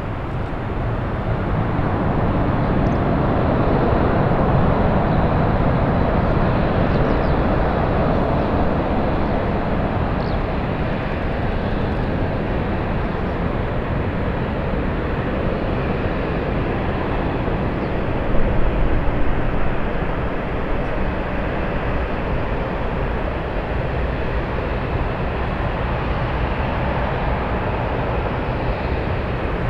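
Jet airliner engines running: a loud, steady rumble with no distinct tones that swells over the first few seconds and then holds, with a brief louder flutter about two-thirds of the way through.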